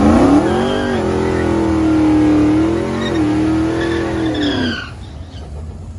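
Ford V8 pickup trucks launching down a drag strip at full throttle, the engine note climbing and dropping at a gear shift about a second in and another about three seconds in, then fading as they pull away.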